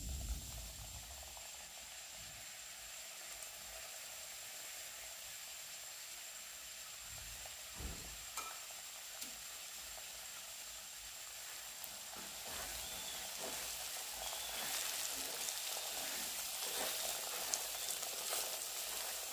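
Semolina sizzling as it fries in hot ghee in a black iron kadhai: a steady frying hiss that grows louder over the second half, with a few short clicks. Near the end a spatula stirs and scrapes the semolina in the pan.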